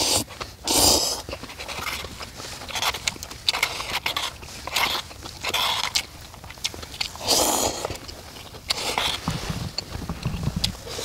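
A person blowing on hot instant noodles held up on chopsticks, in a few loud breathy puffs, between slurping and chewing with small wet clicks.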